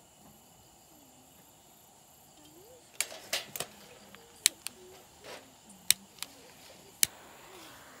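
Metal clicks and clinks from a Feuerhand 276 hurricane lantern being handled and lit with a lighter: a quiet stretch, then about eight sharp separate clicks from about three seconds in.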